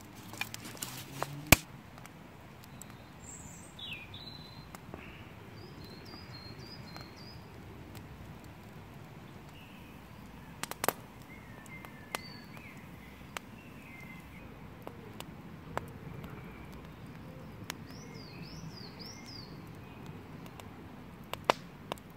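Small birds chirping and singing in short bursts of calls over a low steady outdoor background, with a few sharp snaps, the loudest near the start.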